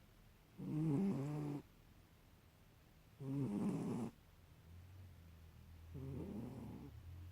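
A domestic cat snoring in her sleep: three pitched, wavering snores about a second long, spaced roughly two and a half seconds apart, the last one fainter.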